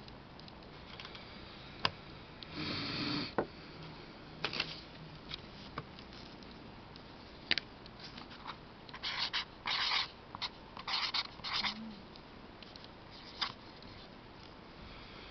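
Permanent marker being written across corrugated cardboard: a run of short scratchy, squeaky strokes in the middle of the stretch. Before it, a click and a brief rustle of hands handling things.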